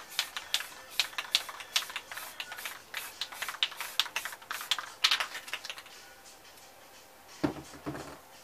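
Quick, uneven light tapping clicks, about three a second, as a crumpled wad is dabbed against a spray-painted canvas, dying away after about five seconds. Near the end come a few duller knocks, a spray can being set down on the worktable.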